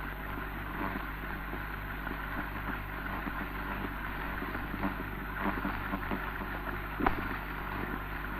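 Worn optical soundtrack of an early 1930s sound film running without speech: steady hiss and low electrical hum with scattered crackles, and one sharper pop about seven seconds in.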